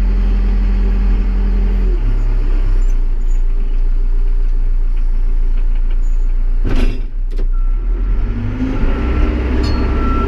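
Backhoe engine running under work, its note dropping about two seconds in and rising again near the end, with two sharp knocks about seven seconds in. Then the machine's reversing beeper starts, sounding steady evenly spaced beeps as it backs up.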